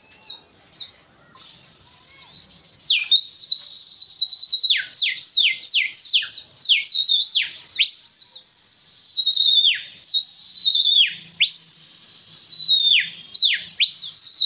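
Loud, shrill human whistling of the kind pigeon flyers use to drive a flock to keep circling. It opens with short quick pips, about three a second. A little over a second in it turns into one long high whistle that swoops sharply down in pitch and back up again and again.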